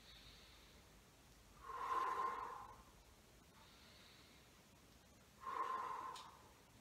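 A man breathing audibly in time with a seated knee-to-chest exercise: two breaths blown out, each about a second long and some four seconds apart, with fainter breaths in between.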